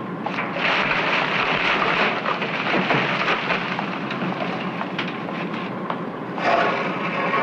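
Rubbish clattering and rumbling as a dustbin is emptied into the back of a dust cart, dying away about six seconds in. Near the end a pitched sound with several tones begins.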